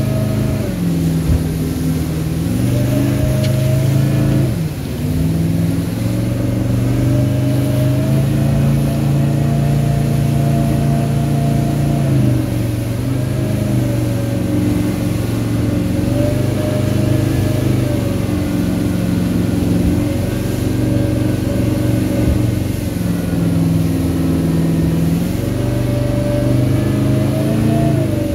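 Outboard motor pushing a small aluminium boat up whitewater rapids. Its pitch rises and falls again and again with the throttle and dips briefly about four seconds in, over the rush of churning water and spray.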